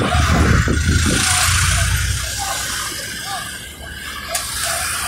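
Engine rumble and road noise heard from inside a moving vehicle: a heavy low rumble over the first two seconds that then eases, with a steady hiss of air and tyres throughout.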